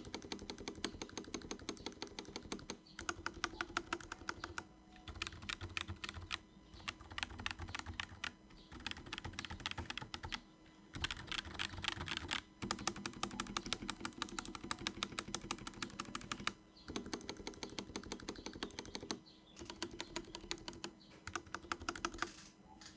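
Fast typing on a Pulsar PCMK TKL hot-swap mechanical keyboard, in bursts of a few seconds with short pauses between them. The typing is not too noisy, softened by the silicone dampener between the PCB and the plate.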